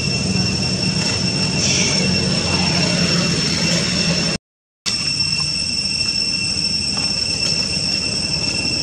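Steady outdoor ambience: a constant high-pitched drone over a low rumble, which drops out for about half a second a little past the middle.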